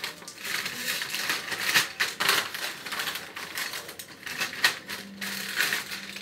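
A foil crisp packet rustling and crackling as crisps are tipped from it into a plastic zip-top bag, in irregular bursts of crinkling with the crisps rattling.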